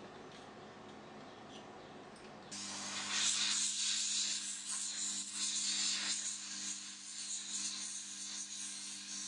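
Heat gun blowing hot air: a steady loud hiss over a low motor hum that comes on suddenly about two and a half seconds in, used to shrink heat-shrink tubing over soldered wires.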